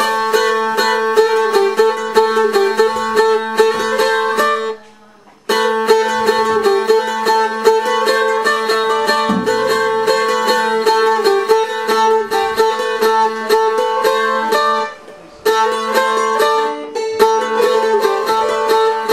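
Bulgarian tambura picked with a plectrum: a fast, busy melody in the Treno rhythm over a steady low note that runs under it. The playing breaks off briefly twice, about five seconds in and again about fifteen seconds in.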